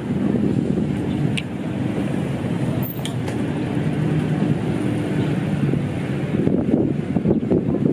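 Outdoor street ambience: a steady low rumble of road traffic mixed with wind on the microphone.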